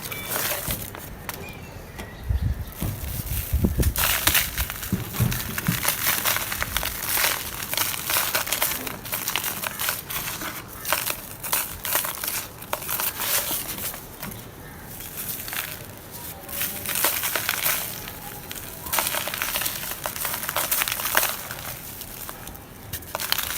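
Dry red dirt chunks being crushed and crumbled into powder: a dense crunching crackle that comes in waves, easing off briefly several times.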